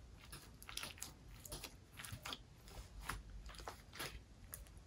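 Slime being squeezed and kneaded by hand, giving a faint, irregular series of sticky clicks and crackling pops, about a dozen of them.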